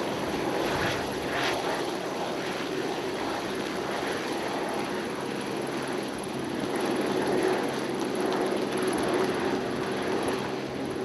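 Helicopter running steadily overhead, its rotor and engine making a constant drone.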